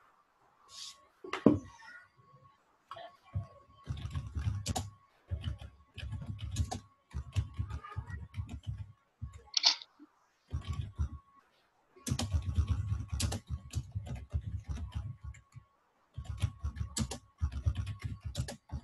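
Typing on a keyboard: several quick runs of keystrokes with short pauses between them. A faint steady tone sits underneath.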